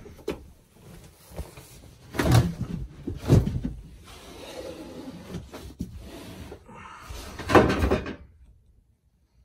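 Wooden bed platform being lifted on gas-strut bed lifts, with wooden knocks and thumps. The loudest knocks come about two, three and seven and a half seconds in.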